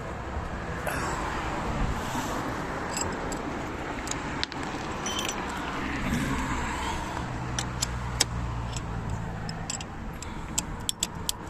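Metal hand tools clinking as a 32 mm socket wrench is worked on the oil filter housing cap, with a quick run of sharp metallic clicks near the end, over a steady low rumble.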